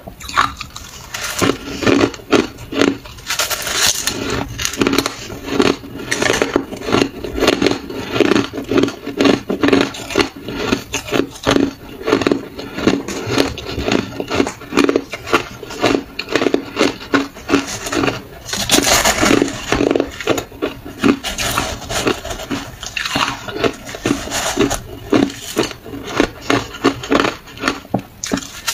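A person chewing mouthfuls of crunchy freezer frost: a dense, continuous run of crunches and crackles, with a few louder bursts.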